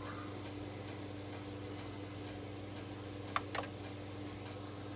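Fisher MT-728 linear-tracking turntable with a record spinning on its platter: a steady low hum with faint regular ticking. Two sharp clicks a fraction of a second apart come a little past halfway.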